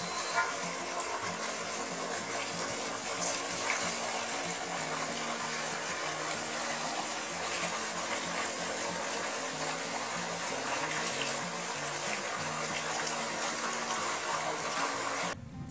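Steady rush of water gushing from a tubewell's outlet pipe into a concrete tank, with a music melody playing underneath. It cuts off just before the end.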